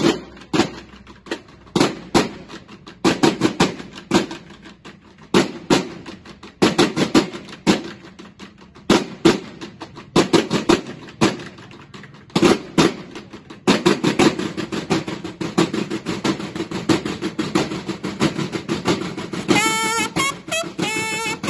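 Banda de guerra marching drums playing a drill routine: groups of sharp strikes and short rolls with pauses between, then continuous drumming from about two-thirds of the way through. Bugles come in with a few short notes near the end.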